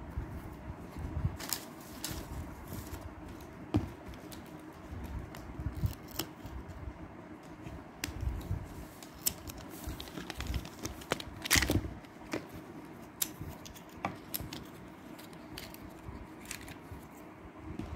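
Handling noise from lipstick tubes and their cardboard cartons being picked up and set down: scattered small clicks and taps over a low rubbing and rustling, with the sharpest click a little past the middle.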